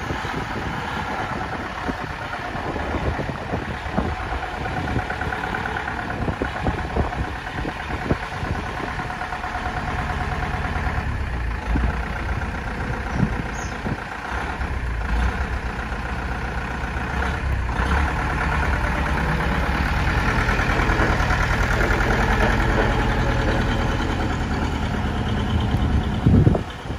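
Bedford TK lorry's engine running at low revs while the truck manoeuvres slowly and pulls away, getting louder over the last several seconds. A short low thump comes just before the end.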